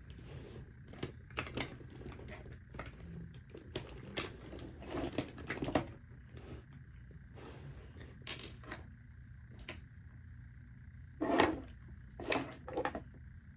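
Irregular light clicks and taps of small objects being handled and set down, with a louder knock about eleven seconds in, over a faint steady hum.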